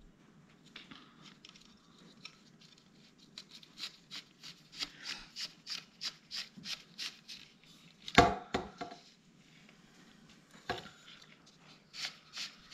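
Pleated caravan blind and its aluminium bottom rail being handled while the cord is threaded back through. A run of quick light clicks, about three a second, comes in the middle, then a sharp knock a little after eight seconds and another about ten and a half seconds in.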